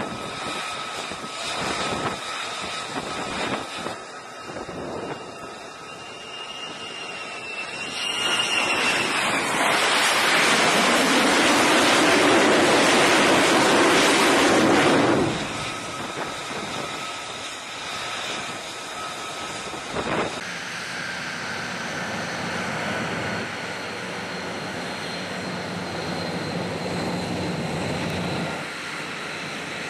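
F-35 jet engine (Pratt & Whitney F135 turbofan) spooling up with a rising whine, then running loudly at full power for several seconds at a carrier launch before the noise drops away sharply. After a cut, a quieter, steady jet engine sound of an F-35 taxiing.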